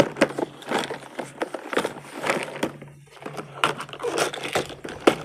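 Rummaging through fishing tackle: irregular plastic clicks, clatter and crinkling as lure kits and packets are handled, over a steady low hum.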